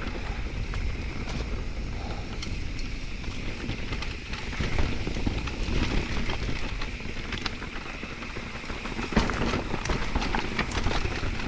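Electric mountain bike rolling down a loose, rocky trail: tyres crunching over stones with a constant clatter of small knocks and rattles from the bike, and one sharper knock late on, over a low rumble of wind on the microphone.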